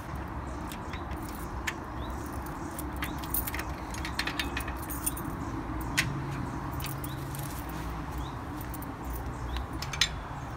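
Footsteps with scattered sharp clicks and knocks over a steady low rumble; the loudest clicks come about six seconds in and again near the end.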